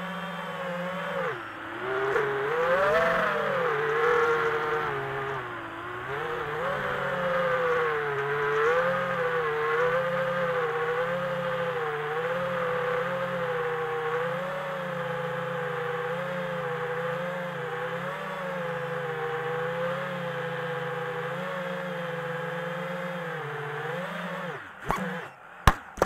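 Homebuilt FPV quadcopter's four T-Motor Velox 2306 2400 kV brushless motors whining in flight, the pitch rising and falling with the throttle. Near the end the whine breaks off with a few sharp knocks as the quad comes down.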